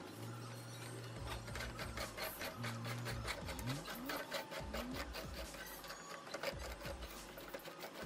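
Hand brush scrubbing rusty steel-wire fan guards: quick, repeated scraping strokes, several a second.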